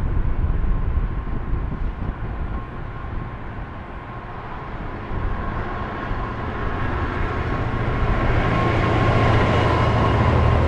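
The two-stroke V12 diesel of a GBRf Class 66 locomotive grows louder as it approaches and passes hauling a container freight train. Its steady low drone is strongest near the end. Earlier it is a general rail rumble that dips for a few seconds.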